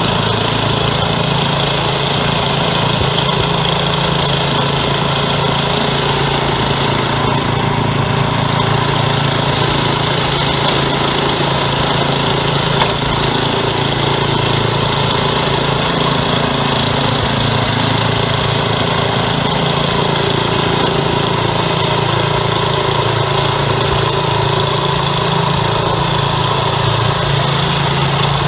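Craftsman 10/30 snowblower's engine running steadily while the machine drives on a test pass after its axle shaft repair. A single click about thirteen seconds in.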